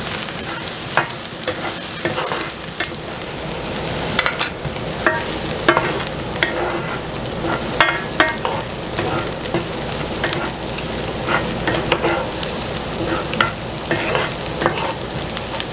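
Diced onions sizzling in butter and olive oil in a skillet, with a utensil scraping and clicking against the pan as they are stirred while they sauté.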